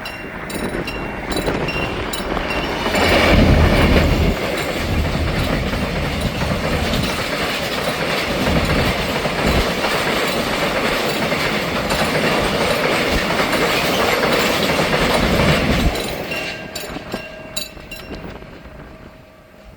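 Freight train of open-top wagons loaded with limestone rolling past a level crossing, the wheels clattering over the rail joints, loudest about three seconds in. The train noise stops abruptly about sixteen seconds in, leaving the crossing alarm's repeating ding.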